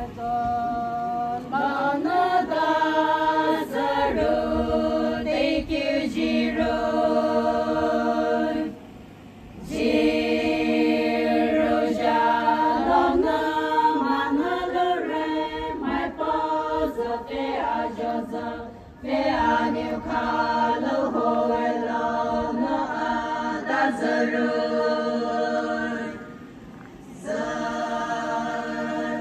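A group of voices singing unaccompanied in long, drawn-out phrases of held notes. The singing breaks off briefly three times, about 9, 19 and 27 seconds in.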